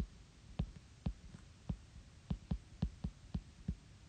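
Stylus tapping on a tablet screen during handwriting: short, irregular dull taps, two or three a second.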